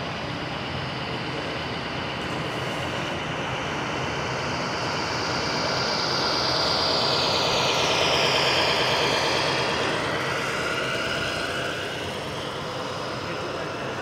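Scale RC Mercedes-Benz Actros tipper truck driving past with its trailer: a steady running sound with a high whine that climbs and then falls in pitch, loudest about halfway through as the truck passes closest.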